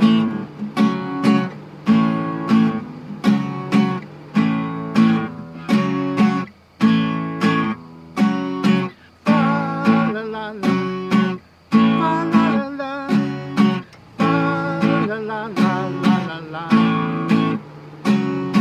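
Acoustic guitar strumming chords in a steady rhythm, the song's instrumental introduction. From about halfway, a wavering higher melody line joins in over the strumming.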